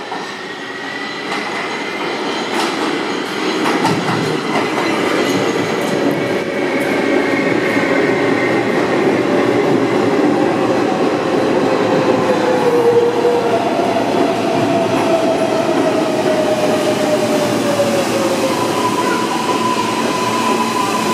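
R143 subway train pulling into an underground station and slowing to a stop: wheels rumbling and clicking on the rails, growing louder over the first few seconds as it arrives. Motor tones whine down in pitch as it brakes, and a steady higher squeal comes in near the end.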